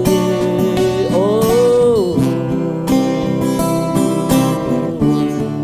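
Instrumental passage of a gospel song: acoustic guitar strumming under a held melody note that bends up and back down about a second in.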